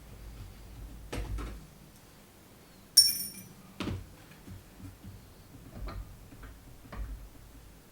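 Small metal clicks and knocks of screws and a screwdriver being handled on a stereo receiver's metal chassis during disassembly. About three seconds in comes the loudest sound, a single bright, ringing metallic clink, followed a moment later by a duller knock and a few light ticks.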